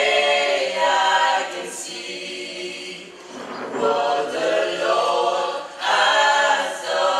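Gospel choir of men and women singing a cappella in harmony, in sung phrases that swell and fade, with a brief softer lull about three seconds in.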